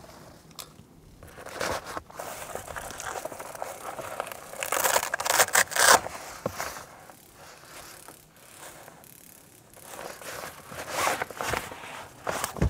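Fabric rustling and scraping in irregular bursts as a rooftop tent's cover and straps are handled, loudest about five seconds in and again near the end.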